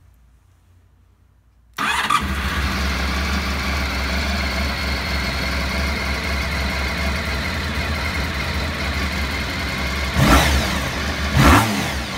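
Honda RC30 V4 engine started on a little choke: it catches suddenly about two seconds in and settles into a smooth, steady idle, with two short throttle blips near the end. Cold start of a freshly overhauled engine.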